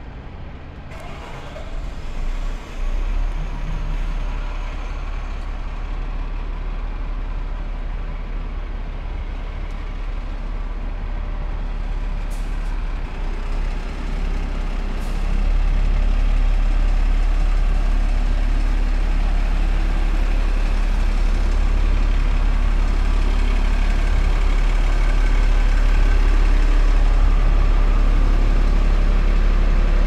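Diesel double-decker bus engines running, a low rumble with steady traffic noise that gets louder about halfway through.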